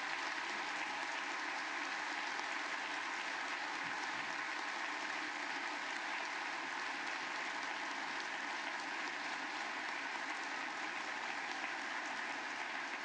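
A large audience applauding steadily, a long unbroken ovation of many hands clapping.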